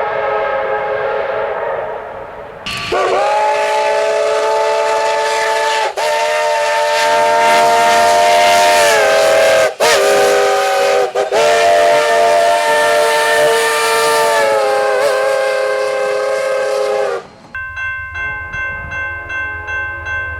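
A steam locomotive's chime whistle blown in long blasts, several notes at once over a hiss of steam, with short breaks between blasts and the pitch sagging slightly as each blast is let off. Near the end it stops and a different steady, evenly pulsing tone takes over.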